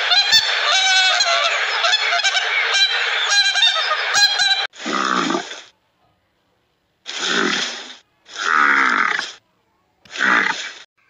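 A flock of waterfowl honking and calling over one another for about the first four and a half seconds. Then come four short, low wildebeest calls, each falling in pitch, with silent gaps between them.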